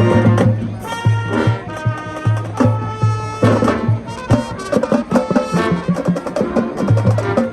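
High school marching band playing a field show: brass chords over a pulsing low bass line and steady drum-line strokes.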